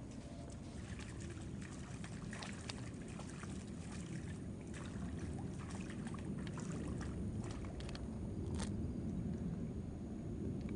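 Irregular light splashes and crackles of footsteps through shallow water and wet grass, over a steady low rumble.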